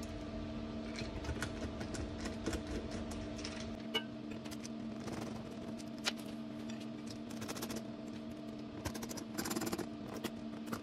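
Light clicks and ticks of small screws and a hand screwdriver working on a winch solenoid control box, a few sharper ticks standing out, over a steady electric hum.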